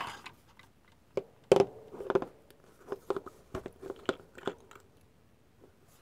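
A run of small, irregular clicks and crunchy knocks from hands handling a bottle of decal softener and its cap, the sharpest click about one and a half seconds in.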